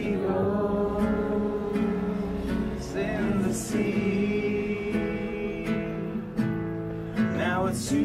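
Live acoustic-guitar song: strummed guitar under long held vocal notes that waver in pitch, with no words.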